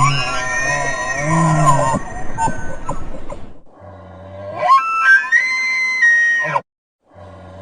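Bull elk bugling. A wavering call with low grunting tones dies away, then a new bugle starts low and glides up into a long, high whistle that cuts off abruptly. Another bugle begins near the end.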